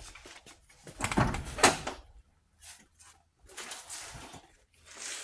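Scraping, rustling and light knocks from hand work on an engine, in a few irregular spurts, the loudest about a second and a half in.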